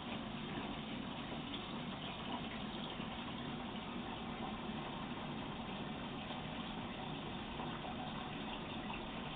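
Water from a hose running steadily into an acrylic tank through a microbubble nozzle at its base, a constant rushing sound of water as the tank fills with milky micro-bubbles.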